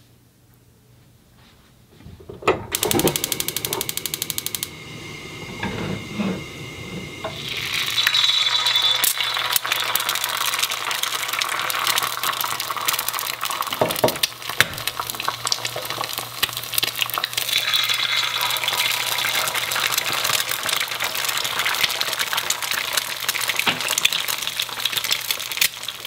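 An egg frying in plenty of hot oil in a preheated cast-iron pan, a dense steady crackling sizzle from about eight seconds in. Before it, about two seconds in, come two seconds of rapid, even clicking, as of a gas burner's igniter, and a few dull knocks.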